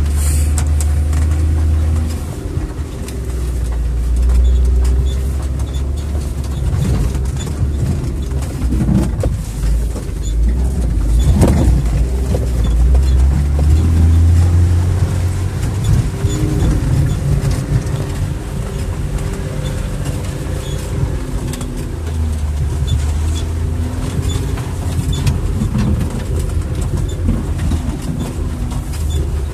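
Jeep Wrangler's engine running under load as it crawls off-road along a rough track, heard from inside the cab, the rumble swelling and easing with the throttle. Occasional knocks and jolts from the body over the rough ground, the sharpest about eleven seconds in.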